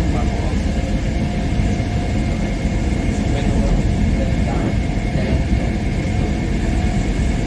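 Mat '64 electric multiple unit running along the line, heard from inside the carriage: a steady, loud rumble of wheels and running gear, with a faint steady high tone above it.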